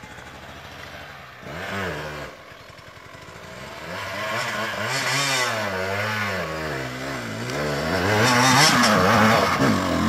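Enduro dirt bike engine under load as the bike climbs a steep trail, its revs rising and falling with the rider's throttle. A short burst of revs comes about two seconds in, then the engine grows steadily louder as the bike approaches and is loudest near the end.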